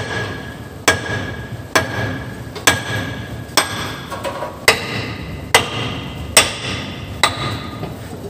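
Sledgehammer blows on steel under a dump truck's leaf-spring suspension, about ten strikes at a steady pace of roughly one a second, each with a short metallic ring.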